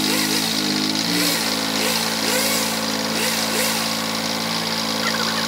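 Massey Ferguson 1020 compact tractor's diesel engine running steadily at close range while its front loader holds a granite block. The engine note shifts pitch about half a second and again about a second in, then holds steady.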